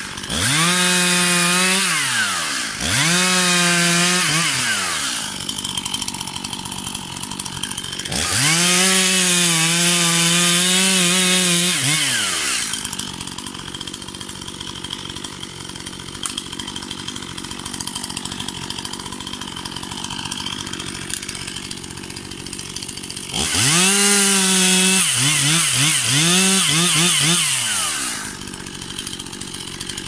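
Stihl MS 241 two-stroke chainsaw making four full-throttle cuts through fallen logs. The engine pitch wavers and sags as the chain bites the wood, and it drops back to idle between cuts, with a long idle in the middle.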